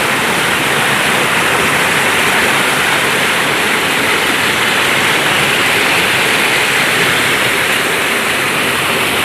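Steady rush of flowing water, an even, unbroken noise with no changes.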